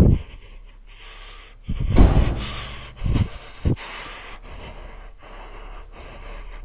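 A person breathing fast and hard close to the microphone, in short rushes of air. Loud low thumps come right at the start, about two seconds in, and twice just after three seconds, like the camera being handled.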